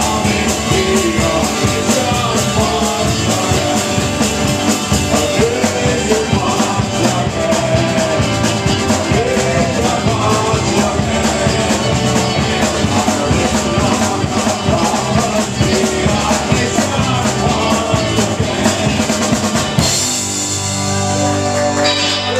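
Live band playing an up-tempo song on drum kit, electric bass, acoustic guitar and mandolin, with the drums keeping a steady driving beat. About twenty seconds in the drumming stops and a final chord rings out.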